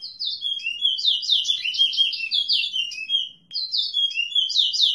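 A small songbird singing: a fast run of short, falling chirps, broken off about three seconds in and then started over as the same phrase.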